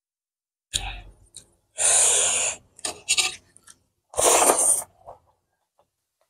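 Close-miked eating sounds from a person eating rice and curry by hand: a soft knock, then two loud, rough mouth noises each under a second long, with small wet clicks between and after.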